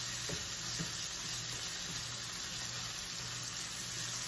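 Diced beef sausage, onions and peppers sizzling in oil in a frying pan, with a few faint taps of a spatula as they are stirred.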